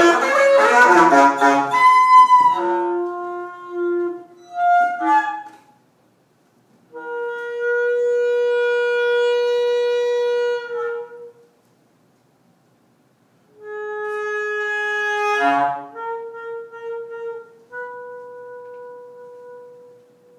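Saxophone improvising: a fast, dense flurry of notes, then long single held notes with silent gaps between them, one broken by a brief squealing run, the last held note fading out near the end.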